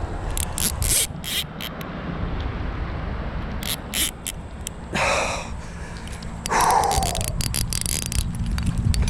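Wind rumbling on the microphone, with scattered sharp clicks and two heavy exhaled breaths, about five and six and a half seconds in, from an angler straining to land a big carp.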